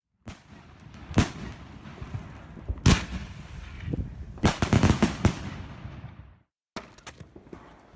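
Fireworks going off: single sharp bangs about a second in and about three seconds in, then a quick run of bangs around the middle, with crackling between them. The sound cuts off after about six and a half seconds, and a few faint clicks follow.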